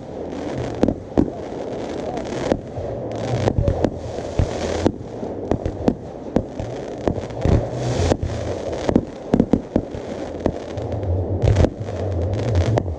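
Aerial fireworks display: shells bursting in quick, irregular succession, with sharp bangs over a continuous rumble and crackle.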